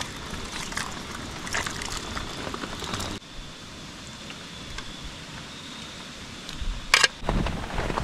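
Light rain pattering steadily, dotted with small crackles and ticks; about three seconds in it drops abruptly to a quieter hiss. Near the end a single sharp knock, then louder rumbling handling noise.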